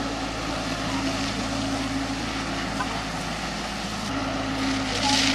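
Diesel engine of a Caterpillar tracked excavator running steadily as it swings its boom, under a hiss of churning water and spray. The rush of spray grows louder near the end.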